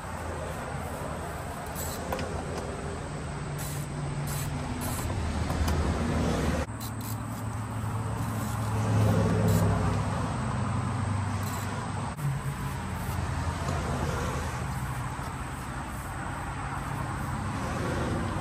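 2019 Yamaha YZ250X's single-cylinder two-stroke engine idling after a cold start, its idle wandering up and down rather than holding steady.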